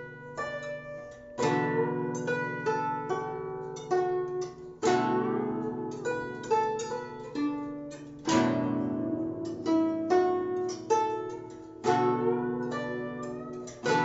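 Guzheng played with both hands: plucked notes ringing and dying away, with a strong low note or sweep across the strings about every three and a half seconds.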